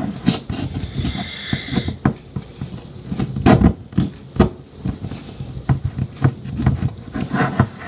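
A knife working at a corned beef tin, metal scraping and knocking on metal in irregular clicks, with a short high squeal about a second in and two louder knocks in the middle. The tin is being forced open along its tear line after its key failed, and it resists.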